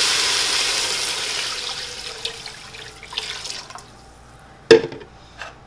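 Fish stock poured in a steady stream from a pitcher into a pot of sautéed onion and fennel, the splashing pour fading gradually over about four seconds. A single sharp knock sounds near the end.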